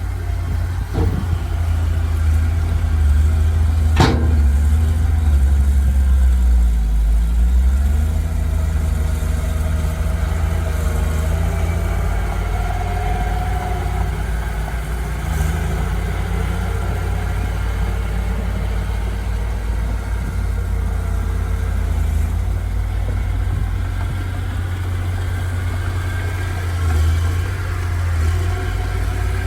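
Diesel engine of heavy earthmoving machinery running steadily with a deep rumble. Its pitch dips and comes back up about six to eight seconds in. There is a single sharp click about four seconds in.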